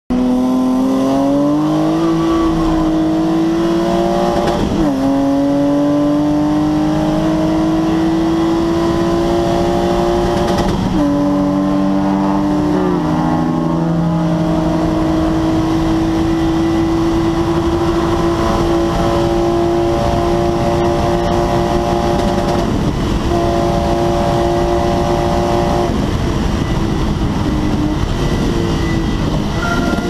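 BMW E21's swapped-in M50B25 2.5-litre straight-six running loud and hard from inside the cabin, its pitch climbing under acceleration and dropping sharply at gear changes several times.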